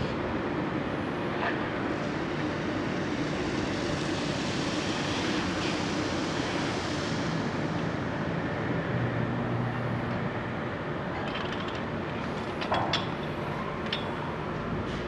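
Gottwald mobile harbour crane running while it works a clamshell grab: a steady mechanical drone from its drive and winches. A few sharp knocks come near the end.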